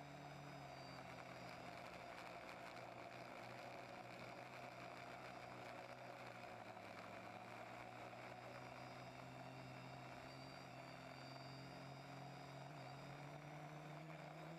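Brushless motors and propellers of a TBS Discovery quadcopter, a faint steady hum whose pitch shifts a little as the throttle changes, heard through the drone's onboard camera.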